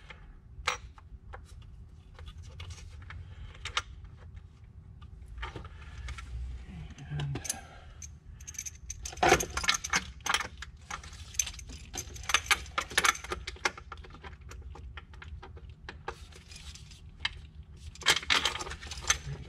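Scattered small metallic clicks, taps and rattles as a steel bolt is worked by hand through the slot of the 2.0 EcoBoost intake manifold and started in its hole, knocking against plastic hoses and parts. The clicks come thickest from about nine to fourteen seconds in and again near the end.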